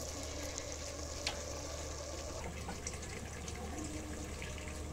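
Clay pot of chickpea curry simmering over an open wood fire, a steady sizzling hiss with scattered crackles and ticks from the burning wood.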